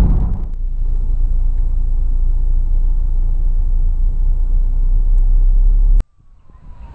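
A loud, steady low rumble that cuts off suddenly about six seconds in, followed by a faint tone falling slowly in pitch.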